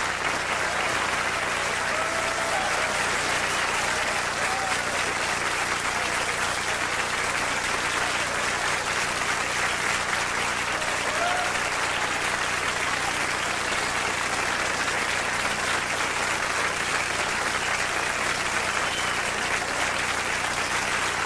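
Concert audience applauding steadily, with a few short calls from the crowd heard above the clapping.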